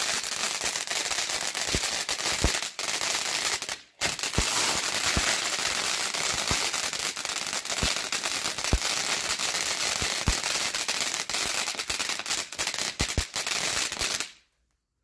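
Mad Ox Pyro Cola novelty fountain firework erupting: a dense hissing, crackling spray of sparks with many sharp pops, which stops suddenly near the end.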